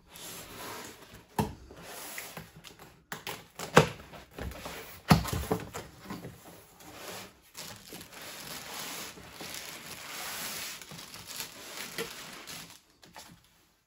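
Cardboard box being opened and unpacked by hand: flaps and card rustling and scraping. There are a few sharp knocks, the two loudest about four and five seconds in, as the packed scale and box are handled.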